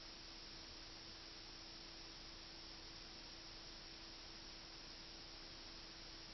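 Near silence: steady background hiss with a faint, unchanging hum.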